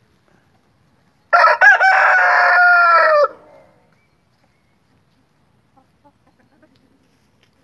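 A silver-laced Wyandotte rooster crows once. The crow lasts about two seconds and breaks over a couple of short notes before a long, slightly falling held note that stops abruptly. A few soft clucks follow near the end.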